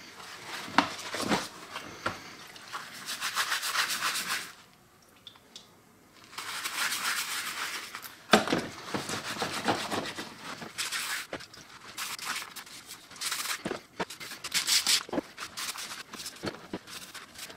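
Wire brush scrubbing the old drill's metal gears wet in a tray of cleaning liquid: brisk back-and-forth strokes, stopping for about two seconds, then starting again, with a couple of sharp knocks of metal parts.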